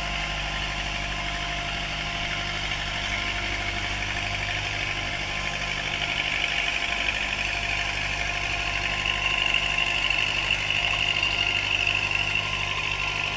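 Engine of a log-laden wooden cargo boat running steadily as it travels past on the river: a steady low drone with a higher whine over it.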